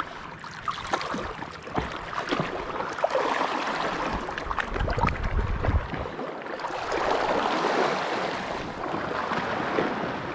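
Small waves washing and lapping over the shallow reef rocks at the shoreline, swelling and easing a couple of times, with wind on the microphone. A few light clicks and knocks come in the first two seconds.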